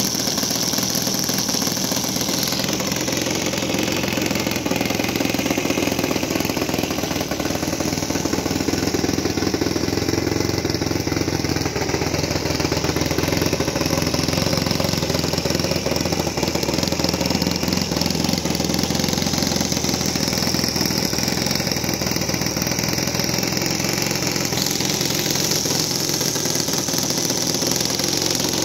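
Saito FG-11 single-cylinder four-stroke gasoline model airplane engine running steadily on its first break-in run, turning the propeller.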